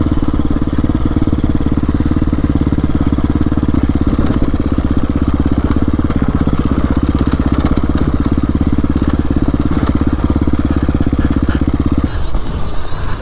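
2017 KTM 350 EXC-F dirt bike's single-cylinder four-stroke engine running at steady revs close to the helmet microphone, then cutting off abruptly about a second before the end.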